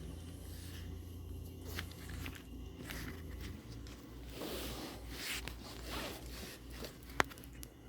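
A rubber bicycle tire bead being worked over the rim by hand, making scraping, rubbing swishes, with one sharp click about seven seconds in. A steady low hum runs underneath.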